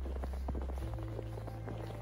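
Footsteps crunching in snow, a dense run of irregular crackling clicks, over a soft ambient music bed of sustained low notes that change pitch about a second in.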